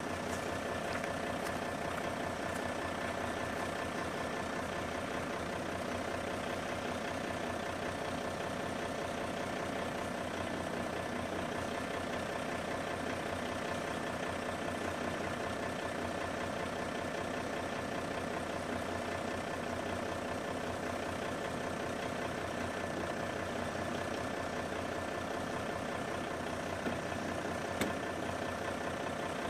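Camper truck's engine running steadily, a constant drone with a fixed whine, and a couple of light knocks near the end.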